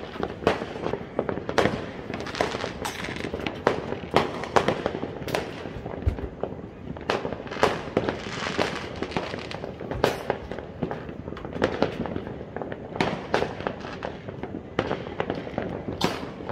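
New Year fireworks going off in many places at once: a dense, irregular string of bangs and pops, several a second, with no let-up.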